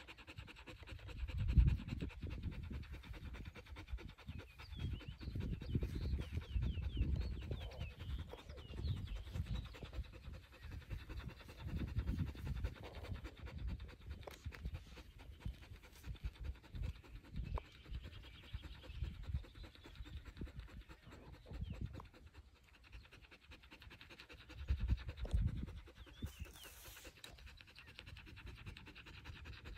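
Dog panting, with irregular low rumbles of wind buffeting the microphone.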